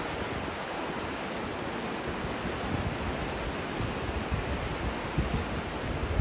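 Steady rushing of the Indus River in flood, fast muddy water, with a few brief low buffets of wind on the microphone.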